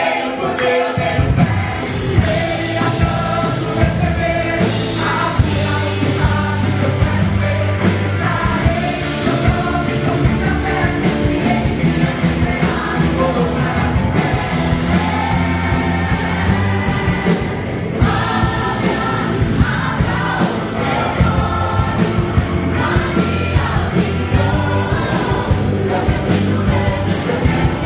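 Christian worship music: a vocal group singing over a band, with held bass notes and a steady drum beat.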